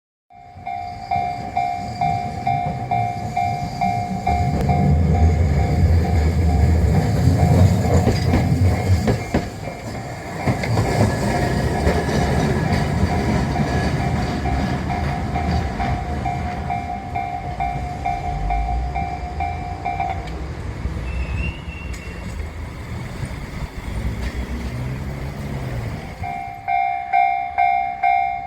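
Japanese railway level-crossing alarm ringing its electronic bell at about two strokes a second while a train rumbles and rattles over the crossing. The bell stops for several seconds near the end, then starts ringing again.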